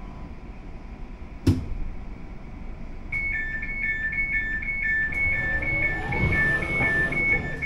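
Door-closing warning on an Elizabeth Line Class 345 train: a two-tone beeping that alternates high and low, about two beeps a second, starting about three seconds in, which signals that the doors are about to shut before departure. Before it comes a single sharp knock about a second and a half in.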